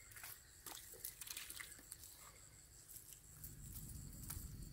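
Faint insects droning steadily at a high pitch, with scattered small taps and clicks. A low rumble comes in about three and a half seconds in.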